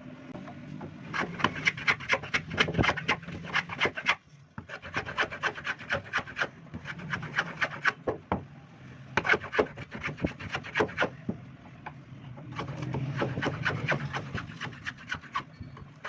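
A hand tool scraping or rasping on wood in quick repeated strokes, several a second, in runs broken by brief pauses.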